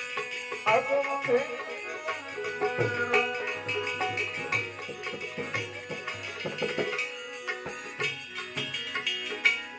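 Instrumental passage of a Gujarati devotional bhajan: tabla playing a steady rhythm under a melody instrument holding long notes.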